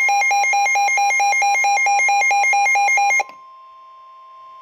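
Emergency Alert System alert tones: a loud electronic warble switching rapidly between two pitches, about five times a second, with a steady tone beneath it. The warble cuts off suddenly about three seconds in, leaving a quieter steady tone.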